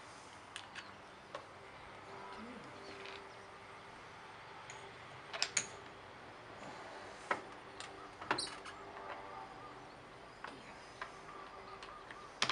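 Plastic and metal parts of a brush cutter's loop handle clicking and knocking as they are fitted by hand onto the shaft tube: a scattered handful of sharp taps, the loudest about five and eight seconds in.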